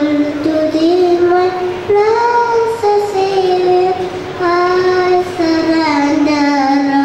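A young girl singing a prayer song solo into a microphone, without accompaniment, in long held notes that step up and down in pitch.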